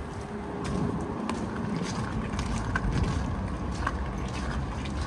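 City street ambience in a snowstorm: a steady low rumble of wind on the microphone and distant traffic, with scattered light clicks and ticks.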